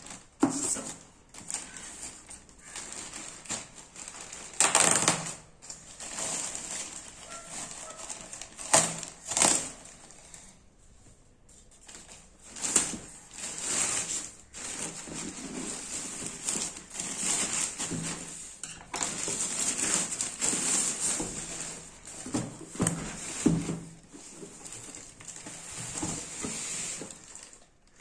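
A large plastic courier mailer bag crinkling and rustling as it is handled and torn open, in irregular bursts with a few sharp crackles. Near the end, a cardboard shoe box and its tissue-paper wrapping rustle as the box is opened.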